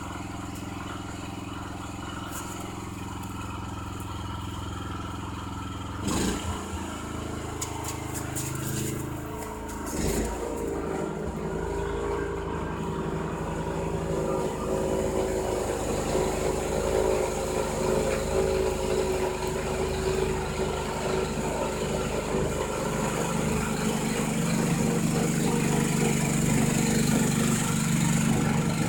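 Snowblower engine running, its note shifting about six seconds in and again about ten seconds in, with a few clattering knocks in between. It then runs on steadily and grows louder near the end.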